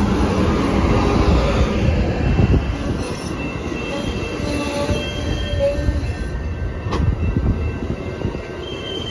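Amtrak Superliner passenger cars rolling slowly past, wheels rumbling over the rails with thin high squeals as the train slows for its stop. A single sharp click about seven seconds in.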